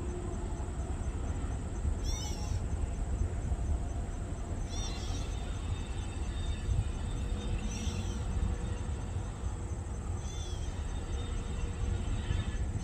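GP9R diesel locomotive's low, steady rumble as it moves slowly. Over it, a bird gives a short chirping call about every two to three seconds.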